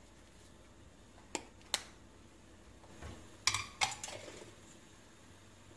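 Stainless-steel kitchenware knocking on a granite countertop: two sharp clicks less than half a second apart, then about three and a half seconds in a short clatter of metal clacks with a brief ring. The clatter fits a metal colander of soba noodles being set down on the counter.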